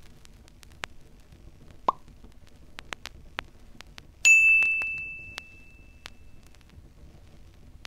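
Added sound effects for on-screen graphics: a short soft pop about two seconds in, then a bright bell-like ding a little after four seconds that rings out and fades over about two seconds, over faint scattered clicks.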